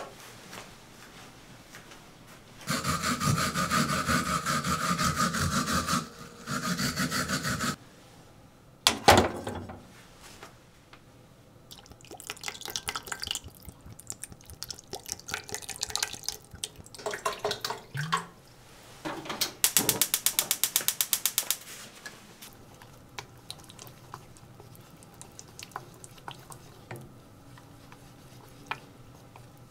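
Kitchen food preparation: two stretches of steady running water near the start, then scattered clinks, taps and scraping of utensils against bowls. Past the middle comes a quick, rhythmic scraping for about two seconds.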